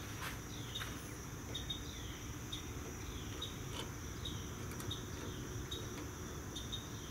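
Faint outdoor background of insects trilling steadily at a high pitch, with short high chirps repeating about twice a second and a few faint clicks.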